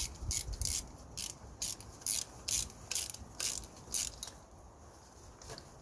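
Ratchet wrench clicking in repeated short strokes, about two a second, as a glow plug is tightened into the diesel cylinder head. The strokes stop about four seconds in.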